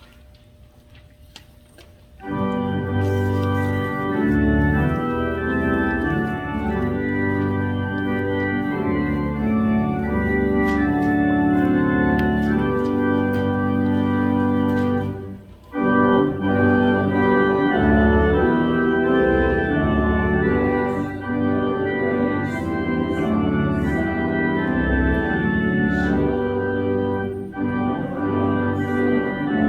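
Church organ playing a hymn in sustained, held chords. It starts about two seconds in and breaks off briefly about halfway through.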